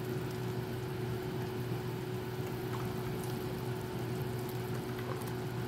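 Pork broth boiling in a stainless-steel stockpot on a gas burner, a steady bubbling with a constant low hum underneath. A few faint taps of the spatula against the pot as it is stirred.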